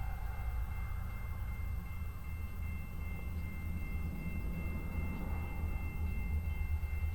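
Railroad grade-crossing warning bell ringing as a steady two-pitch tone, the signal that the crossing is activated for an approaching train, over a steady low rumble.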